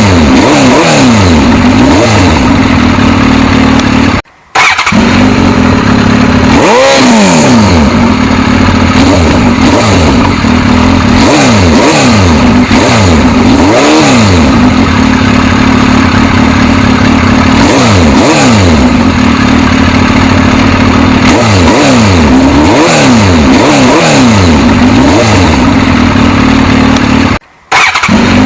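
Suzuki GSX-S1000's inline-four engine being revved over and over, the pitch climbing and falling with each blip over a steady underlying drone. The sound cuts out briefly twice, about four seconds in and near the end.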